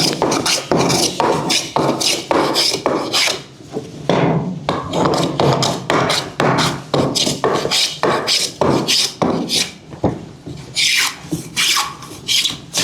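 A hand rasp working the willow of a cricket bat in repeated scraping strokes, about two a second, with brief pauses twice.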